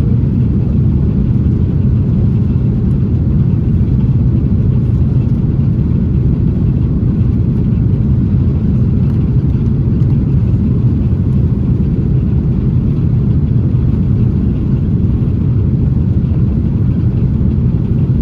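Steady low rumble inside the cabin of an Airbus A330-900neo descending on approach: its Rolls-Royce Trent 7000 engines and the airflow over the fuselage, unchanging throughout.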